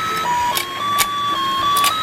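Battery-powered toy fishing game playing its simple electronic beeping tune, one plain note at a time, with a few sharp plastic clicks from the game.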